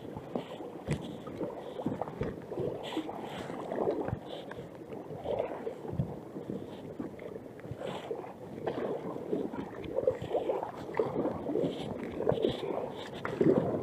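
Canoe paddle strokes dipping and splashing in river water beside an inflatable canoe, swelling every second or two in an uneven rhythm, with a few sharp knocks.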